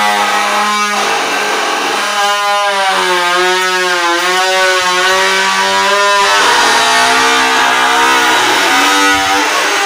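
Bull-driven wooden ghani oil press squealing as its wooden pestle grinds round in the seed-filled mortar: long wavering tones a few seconds each, dropping lower about six seconds in, over a steady low hum.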